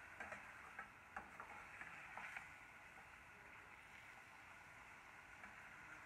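Metal slotted spatula scraping and clicking against a stainless steel pan while stirring frying onions and tomatoes: a scatter of light clicks in the first couple of seconds, fewer later, over a faint steady sizzle.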